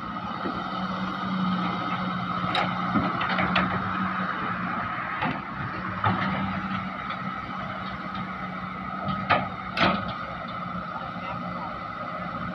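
Heavy diesel engine running steadily, with sharp metallic knocks and clanks on top, two loud ones close together near the end.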